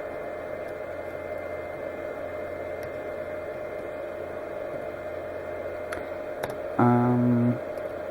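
Steady hum and hiss with a few faint computer keyboard clicks as code is typed in. Near the end, a loud steady whine lasting a bit under a second.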